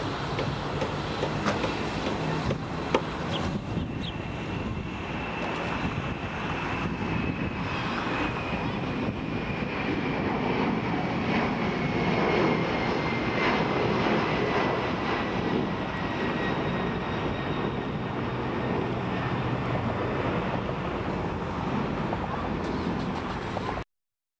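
Boeing 767 jet engines at takeoff power: a steady rush with a high whine that slowly falls in pitch. The sound cuts off suddenly near the end.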